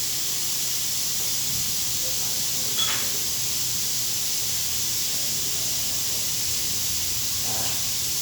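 Steady hiss throughout, with a single short metallic clink about three seconds in.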